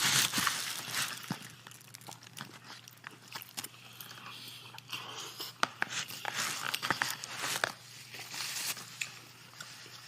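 A person chewing and biting into crunchy fried chicken close to the microphone: irregular crunches, loudest right at the start.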